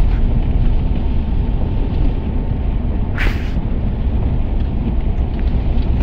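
Steady low rumble of road and engine noise inside a moving car's cabin, with a brief hiss about three seconds in.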